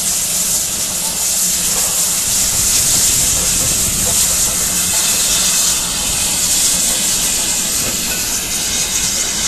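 Steam locomotives hissing: a steady, high hiss of escaping steam.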